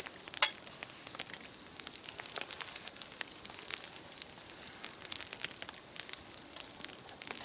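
Small wood campfire crackling, with scattered sharp pops and snaps over a faint hiss.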